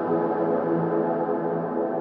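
Ambient background music: sustained, slowly shifting tones.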